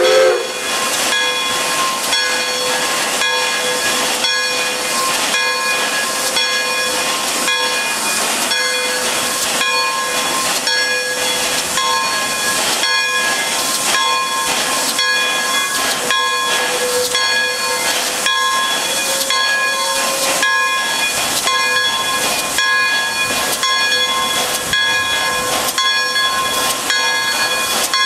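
Pere Marquette 1225, a 2-8-4 Berkshire steam locomotive, hissing loudly with a steady whine under the steam and an even rhythmic beat about one and a half times a second. The tail of a steam whistle blast cuts off right at the start.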